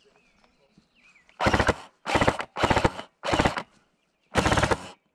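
Jing Gong G36 airsoft electric gun firing five short full-auto bursts, each about half a second long, the first four in quick succession and the last after a short pause.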